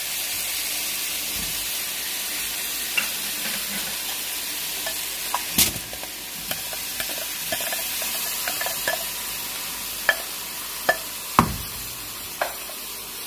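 Bone-in beef mince being dropped and pressed by hand into a non-stick wok of raw onions, tomatoes and spices, giving scattered soft knocks and clicks. The loudest knocks come about halfway and near the end, over a steady hiss.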